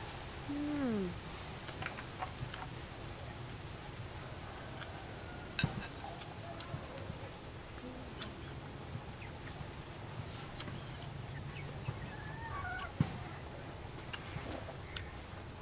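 Insects chirping outdoors, a high-pitched trill in quick pulsed bursts that keep repeating. A short falling hum comes near the start, and a few sharp clicks come later.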